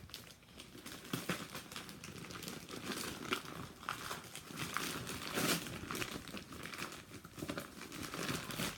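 Paper wrapping crinkling and rustling as a gift is unwrapped by hand, with irregular crackles and some tearing.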